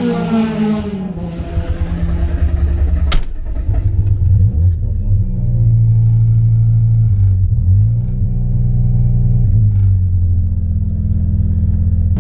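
Mazda RX-7 rotary engine just after starting: the revs fall over the first few seconds, with one sharp click about three seconds in. It then settles to a steady idle, with a brief dip in revs about seven to eight seconds in.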